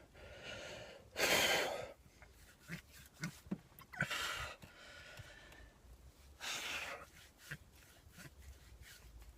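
A man breathing heavily under heat stress: four slow, deep breaths a couple of seconds apart, the loudest about a second in.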